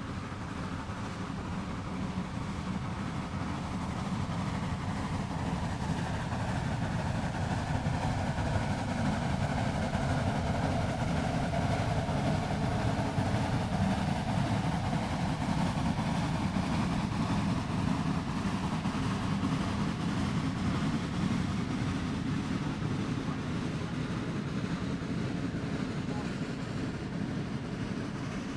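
Train running with a steady rumble that grows louder toward the middle and eases off a little near the end.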